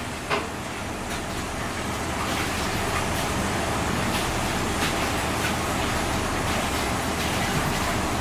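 Steady background rumble and hiss, with a few faint taps of a knife on a cutting board.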